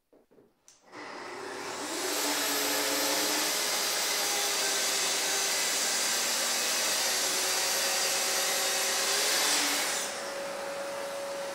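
Festool plunge-cut track saw on its guide rail cutting through a panel, with its dust extractor running. The extractor starts about a second in, and the saw motor spins up a moment later and runs with a steady whine through the cut. The saw switches off near the end while the extractor keeps running.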